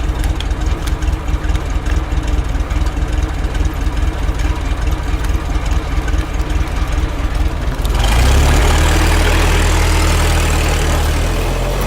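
Heavy diesel engine of a construction machine idling with a rapid low knock, then revving up sharply about eight seconds in and holding at the higher speed.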